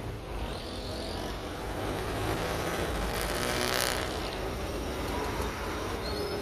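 Street ambience of motor traffic: a steady rumble of vehicles, with a louder hiss for about a second, some three seconds in.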